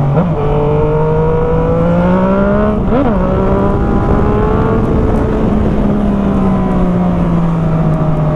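Motorcycle engine running through a Jeskap GP2 aftermarket exhaust while riding. Revs climb steadily, there is a quick gear change about three seconds in, then the bike cruises with the engine note slowly falling.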